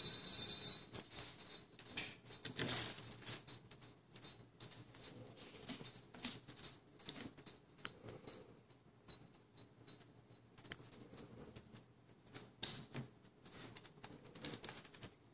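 A cat scrabbling about a carpeted cat tree as it plays. Its claws and paws make an irregular string of scratches, taps and rustles, busiest in the first few seconds and again near the end.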